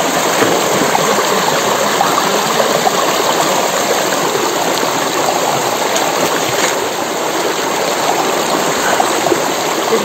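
Rushing water of a shallow hill stream running steadily, with people diving and splashing in it.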